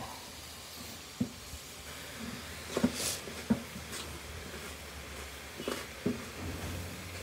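Chopped greens being scraped by hand off a large metal tray into a cooking pot: scattered light taps and knocks of the tray on the pot, loudest in a cluster about three seconds in.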